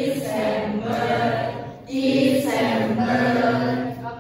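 A class singing the names of the months in unison, a simple chant-like song in two long held phrases with a short break between them.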